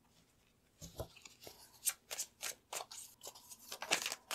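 Tarot deck being shuffled by hand: a quick, irregular run of light card clicks and swishes, starting about a second in.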